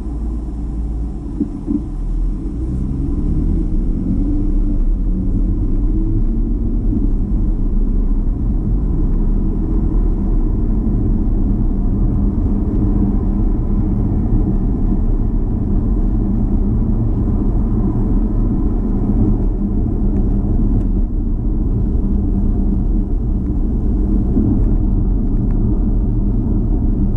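Car driving, heard from inside the cabin. The engine rises in pitch as the car pulls away over the first few seconds, then settles into a steady low rumble of engine and road noise while cruising.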